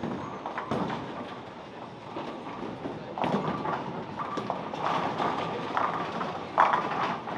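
Bowling alley in play: bowling balls rumbling down the wooden lanes and pins clattering, with many sharp knocks and a loud crash of pins near the end.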